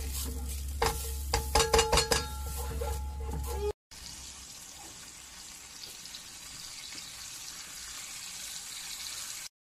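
A spatula stirring and knocking in a stainless steel pan over a steady low hum, with a quick run of sharp knocks about a second or two in. Then a whole crucian carp and tofu cubes sizzling steadily as they fry in the pan.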